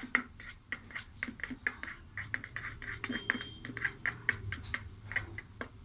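Slime mixture being stirred in a container, a utensil scraping in quick repeated strokes, about three or four a second.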